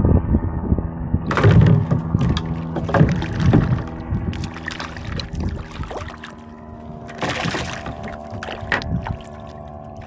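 A small hooked fish splashing and thrashing at the water's surface beside a kayak as it is reeled in. The splashing comes in a run of bursts in the first few seconds and again about seven seconds in, over a steady hum.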